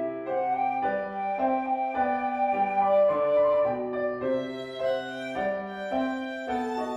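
Flute, violin and piano trio playing a melodic instrumental arrangement, the notes following on continuously.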